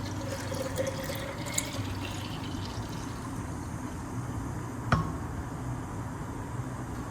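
Liquid pouring and trickling into a bottle for about three seconds, then a single sharp click about five seconds in, over a steady low hum.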